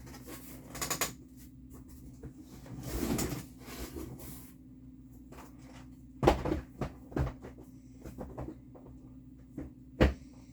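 Boxes and packages being handled: rustling, then a few sharp knocks as they are moved and set down, the loudest about six seconds in.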